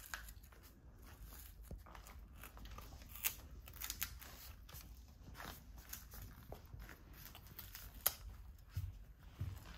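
Toddlers biting and chewing crunchy baby crackers: faint, scattered crunches and small mouth clicks, with one sharper click about eight seconds in.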